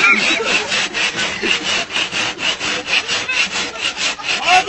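Wooden plank worked rapidly back and forth over another board, a rhythmic wood-on-wood rasping of about five strokes a second, imitating the chugging of a diesel engine starting in the cold.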